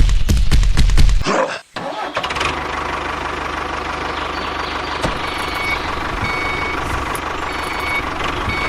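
Engine sound: a fast, even knocking for about the first second, a brief cut-out, then a steady running noise with a constant whine and short high beeps repeating about once a second.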